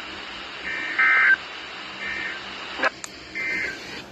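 NOAA Weather Radio Specific Area Message Encoding (SAME) end-of-message data bursts: short two-tone digital warbles. A loud one comes about a second in, with fainter bursts between and near the end. These mark the close of the weekly test broadcast. A couple of sharp clicks come shortly before the last faint burst.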